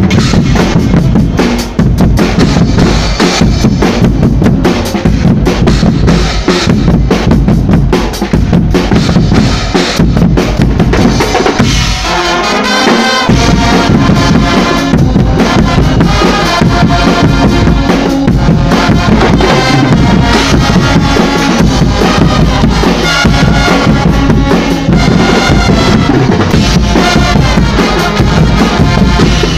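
Swiss Guggenmusik carnival band playing loudly: a drum kit with bass drum and snare pounds close by under massed trumpets, trombones and sousaphones. The drums drop out briefly about twelve seconds in, and after that the brass is more to the fore.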